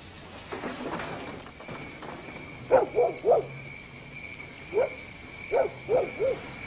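Short, sharp animal calls, each rising and falling in pitch, coming in clusters of two or three, over a steady high ringing tone.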